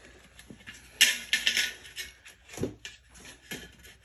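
Screen spline roller being run along galvanized sheet metal against a metal straightedge, scoring the lines of a cross break into a duct panel: a series of short metallic scrapes and clicks, the first and loudest about a second in.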